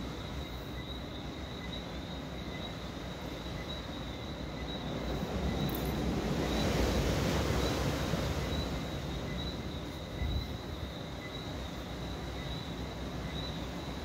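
Tropical night ambience: a steady, high-pitched chorus of pulsing chirps over a low rumble. The rumble swells for a few seconds in the middle and then fades back.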